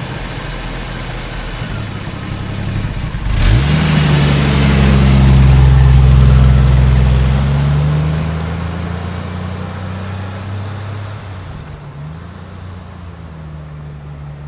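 Motor-vehicle engine sound, running steadily, then revving up about three and a half seconds in and holding at a higher pitch before slowly fading toward the end.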